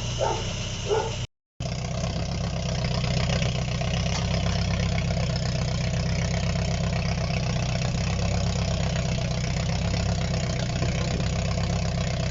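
Rebuilt Opel Corsa B GSI four-cylinder engine running at a fast, steady cold-start idle just after its first start, with the hydraulic lifters still filling with oil. The sound cuts out briefly about a second in, then the idle continues evenly.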